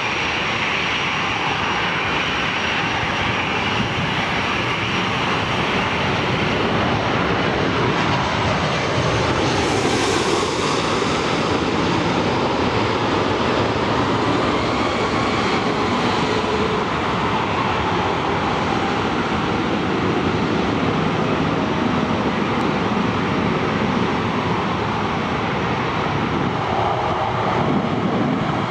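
Jet engines of a taxiing four-engine Airbus A340 airliner, a steady rumble with a faint high whine.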